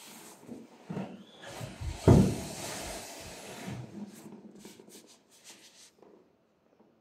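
Feet in cotton socks shuffling and sliding on a floor close to the microphone, with a thump about two seconds in, then a few small rubs and taps.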